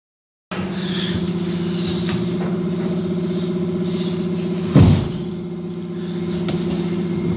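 A steady mechanical hum, like an engine or machine running, with one loud thump about five seconds in as a trailer floor plate is handled.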